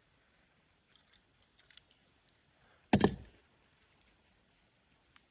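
Steady high-pitched insect trill, with a few faint clicks and one sharp knock about three seconds in.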